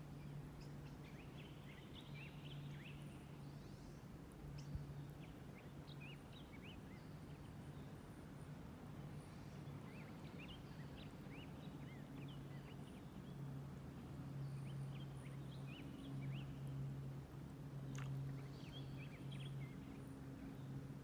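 Small birds chirping in scattered clusters of short, quick calls, over a steady low hum.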